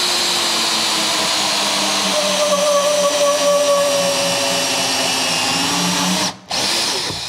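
Power drill driving a hole saw through a shower wall liner panel, cutting the hole for the mixer: a steady motor whine with the rasp of the saw teeth, slowly dropping a little in pitch. It stops briefly about six seconds in, then runs again just before the end.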